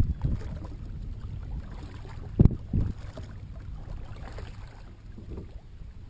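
Steady low wind rumble on the camera microphone, with two sharp knocks about two and a half seconds in as the kayak paddle is set down against the kayak.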